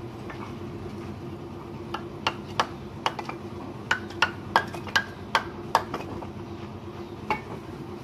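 Fired red clay bricks clinking and knocking against one another as they are picked up by hand from a heap, about a dozen sharp clinks in quick, uneven succession starting about two seconds in, with a last one near the end.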